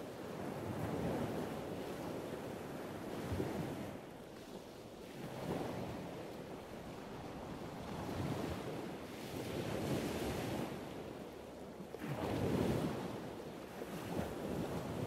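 Outdoor wind and surf noise: a steady rushing that swells and fades every two to three seconds, with wind buffeting the microphone.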